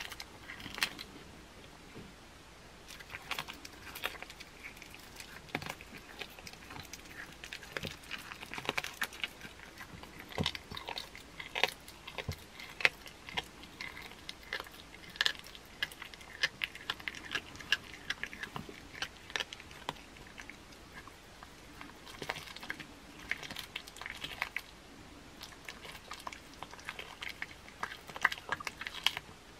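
Domestic cat chewing and biting raw chicken head and meat: irregular wet clicks and crunches of teeth on bone and flesh, close up.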